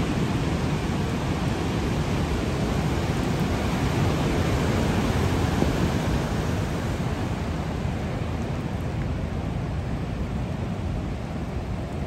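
Stormy ocean surf breaking around rocks: a steady, deep rush of churning white water, its higher hiss easing a little in the second half.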